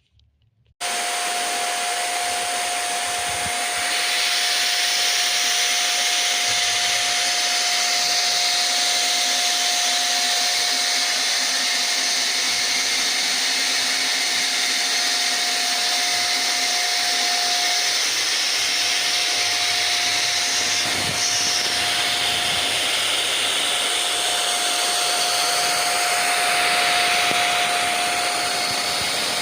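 Electric router motor running at speed in a router table: a steady whirring rush with a constant high whine. It starts abruptly about a second in and gets a little louder and hissier around four seconds, as if it begins cutting wood.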